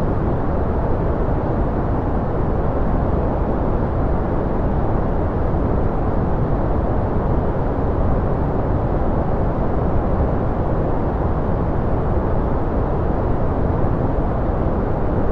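Steady, unchanging noise of a white-noise relaxation track, weighted to the low end: a deep, even rush with little high hiss.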